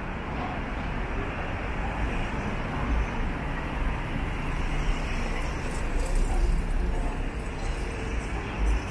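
Road traffic in a city street: a steady low rumble of cars, with no single vehicle standing out.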